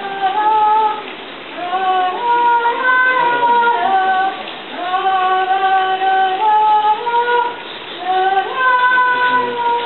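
A woman's voice singing unaccompanied, in slow phrases of long held notes that step up and down in pitch, with short pauses between phrases.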